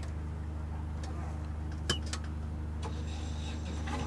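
Volvo Penta marine diesel engine running at a steady idle, with a single click about halfway through. The engine is being run to check a newly fitted exhaust mixing elbow for leaks.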